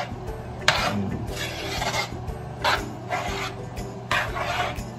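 A large spoon scraping and stirring thick spaghetti meat sauce around a wide metal wok, in separate strokes about once a second, over a steady low hum.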